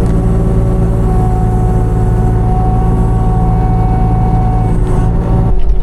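Mini excavator's diesel engine running steadily, with a thin steady whine above the engine note. The sound changes abruptly near the end.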